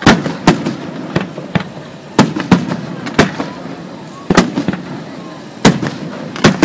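Aerial firework shells from a Pirotecnica Scarsella display bursting overhead: about ten sharp bangs at irregular intervals, some in quick pairs, each trailing off.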